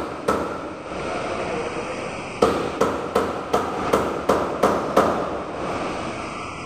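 Hammer blows at a workbench: one strike, then a steady run of about eight blows, nearly three a second, each with a short ring.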